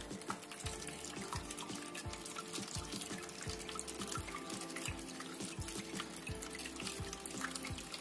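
Water trickling and splashing as thin streams fall from bowl to bowl of a cement tabletop waterfall fountain into its basin, with background music of sustained tones.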